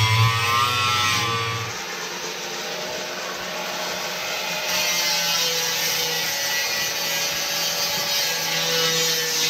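Power grinder cutting back the edge of the boat's hull moulding. The motor hum gives way after about two seconds to a steady rasping of the cut, which grows harsher from about five seconds in.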